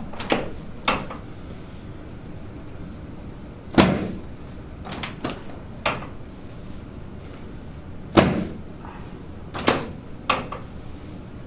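Sharp knocks or clacks from a chiropractic treatment table during an adjustment, about nine in all, coming singly and in quick pairs.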